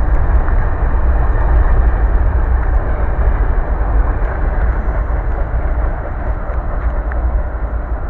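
Freight train passing: a steady, loud rumble of wheels on rails that eases slightly near the end.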